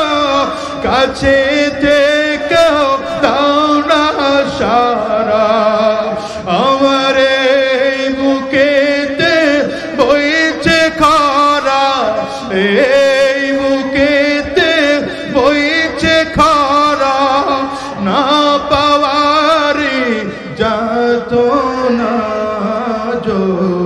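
A man singing a Bengali Islamic devotional gazal (an eshq gazal) in a chanting style, the melody wavering and gliding in long ornamented phrases.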